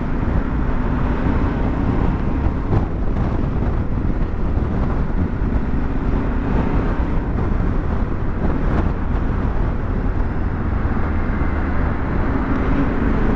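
Yamaha Ténéré 700's parallel-twin engine running steadily while the bike is ridden, its brand-new engine still being run in, under a steady rush of wind and road noise.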